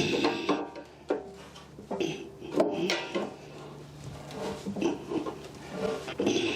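Irregular metal clanks, knocks and scraping as a heavy cast-iron Bridgeport mill base is shifted and slid along in short pushes.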